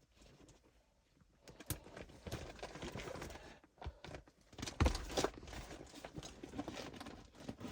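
Someone rummaging and handling things, with irregular soft knocks and clicks starting about a second and a half in. One louder thump comes about five seconds in.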